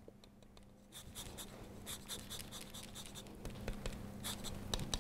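Lime being zested on a small hand grater: soft, uneven rasping and scraping that starts about a second in and grows a little louder.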